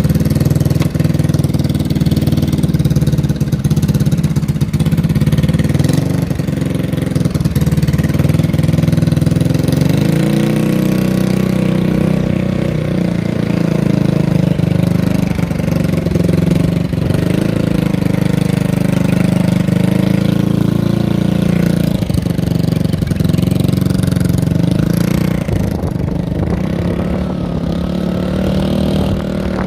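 Small engine of a home-built mini bike running under way, its pitch rising and falling with the throttle.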